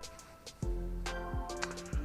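Background music with a steady beat: sustained chords over a regular kick drum and crisp high ticks. It dips briefly just after the start, then comes back in.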